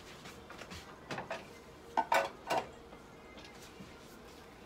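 A few short clinks and knocks of hard objects being handled. A couple of small clicks come about a second in, and three louder clatters follow a little after two seconds in.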